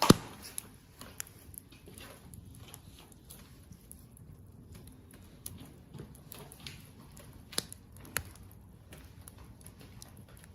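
Bonfire of scrap construction lumber crackling, with irregular small ticks and sharp pops. A loud snap comes right at the start and two more stand out near the end.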